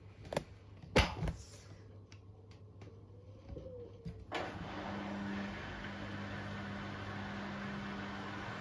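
Beko WTK104121W front-loading washing machine in its eco 60°C cycle: a few knocks from the turning drum, then about four seconds in a steady hum and rushing-water noise start suddenly and run on as the machine moves into its first intermediate spin.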